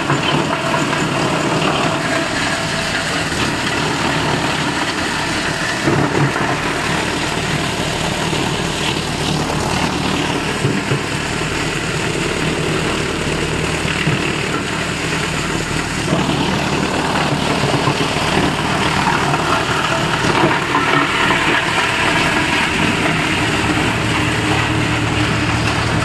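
Drum wood chipper running and chipping wood: a steady, dense mechanical noise that grows slightly louder in the last third.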